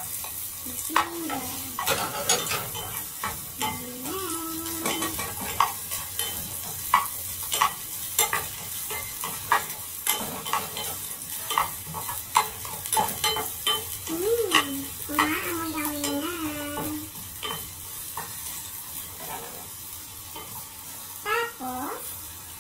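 Sliced ginger sautéing in a pot with a steady sizzle, while a bamboo spatula stirs it and clacks against the pot many times.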